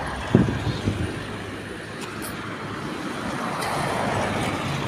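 Road traffic going by: a steady rush of vehicle noise that swells as a vehicle passes close about four seconds in. A short loud burst sounds near the start.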